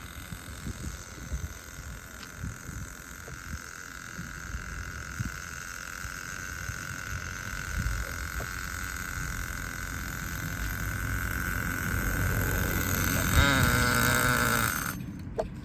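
Small nitro RC engine (T2M) running steadily at high revs with a high-pitched whine during break-in. It grows louder over the last few seconds and then cuts off suddenly near the end.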